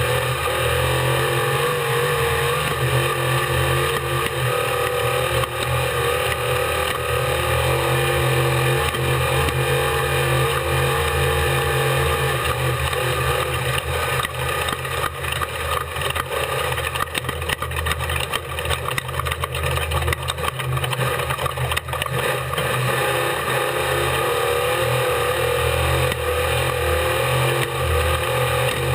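Off-road race vehicle's engine running hard at a steady pace, with wind and road rumble. There is a stretch of jolts and knocks about midway.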